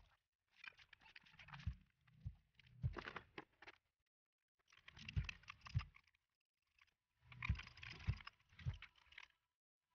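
Faint clicking, knocking and rubbing of hand work on scooter parts, in four short bursts with brief silences between; a socket ratchet is being worked on the exhaust heat shield bolts.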